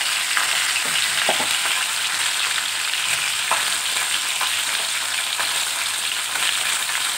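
Fish pieces rubbed with salt and turmeric shallow-frying in hot mustard oil in a kadai: a steady sizzle with a few small pops.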